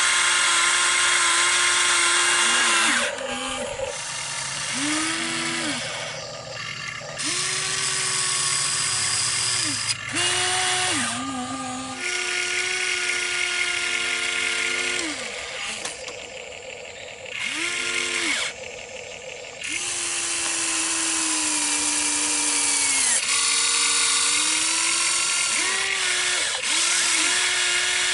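Huina RC excavator's electric motors whining in short start-and-stop runs as the boom, arm and bucket move to dig soil. Each run lasts one to a few seconds, and some sag in pitch as they stop.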